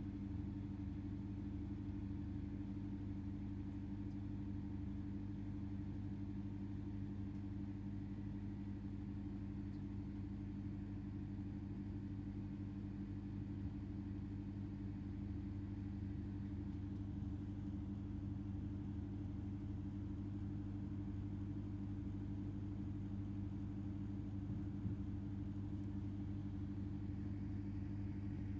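Steady low electrical hum of room tone, even and unchanging throughout, with one faint tick about 25 seconds in.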